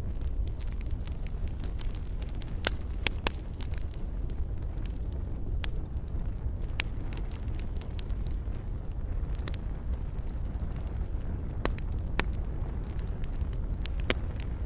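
Wood fire crackling in a fireplace: irregular sharp pops and snaps over a steady low rumble of the flames, with a few louder pops about three seconds in and near the end.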